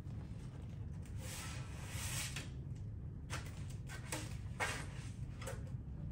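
Sheets of paper being handled and shuffled on a music stand: a rustle lasting about a second and a half, then several short crackles of paper.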